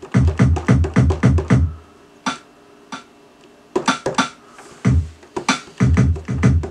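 Electronic drum-machine sounds played live from a Novation Launchkey 25 MIDI controller through Ableton Live: a fast run of deep kick-like hits with sharper hits on top for about two seconds, a few scattered single hits, then another run of hits from nearly four seconds in.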